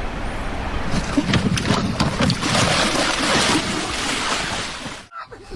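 Loud rushing wind and water noise, with a few sharp knocks in the first second.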